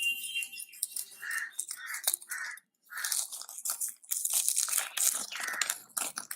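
A mail-order packet being torn open and its packaging crinkled and rustled by hand, in irregular crackling bursts with a short pause partway through.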